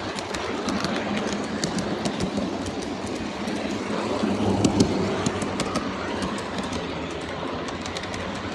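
G-scale model train running along the track, a steady rolling rumble with irregular clicks as the wheels cross rail joints, briefly louder about halfway through.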